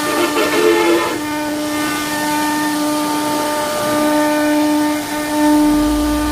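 CNC router spindle whining at a steady pitch as its bit routes grooves into a wooden panel. The whine dips briefly a few times.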